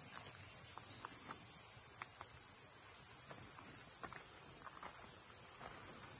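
Steady high-pitched insect chorus in summer woodland, with faint irregular footsteps crunching on a gravel path beneath it.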